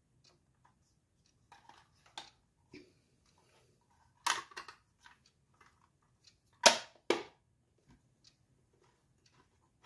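Sharp clacks and light taps of a Traxxas pistol-grip transmitter's hard plastic housing being handled: two pairs of clacks, about four and about seven seconds in, the second pair the loudest, with faint taps between.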